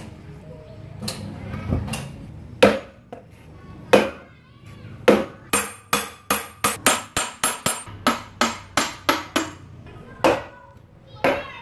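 Hammer blows on a steel chisel wedged at the rim of a large generator's cast end cover, driving the cover off the housing. A few single blows come first, then a fast run of about four sharp metallic strikes a second, then two more.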